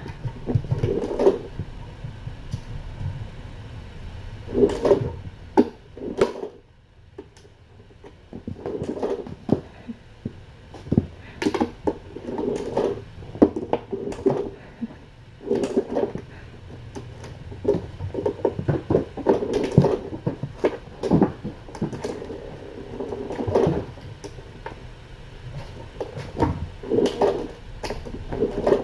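Irregular knocks, thumps and rustling from cats and kittens playing and scampering about, with a brief lull a few seconds in.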